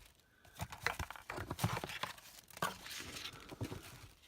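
Paper and plastic packaging being handled in a box: irregular rustling and crinkling with light taps and knocks.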